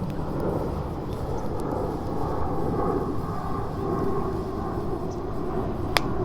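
Wood fire burning in a disk-shaped fire pit, a steady low rumble with one sharp crack of burning wood about six seconds in.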